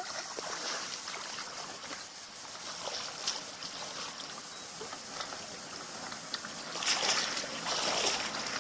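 Water sloshing and trickling, with louder rushes of water noise near the end.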